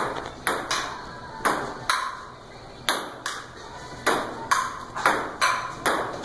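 Table tennis rally: the ball clicks sharply off the paddles and bounces on the table, a quick uneven run of ticks about two a second.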